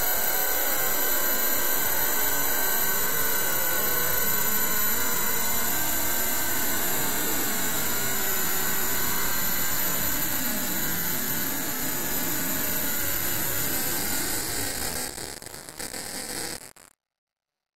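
Loud, heavily distorted noise from a digitally processed effects soundtrack: a dense hiss with steady high whines and wavering tones under it. It weakens and turns ragged about fifteen seconds in, then cuts off abruptly near the end.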